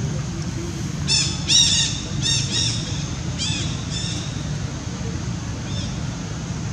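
A baby long-tailed macaque squealing: a run of about seven short, high-pitched, arched cries, bunched together in the first half.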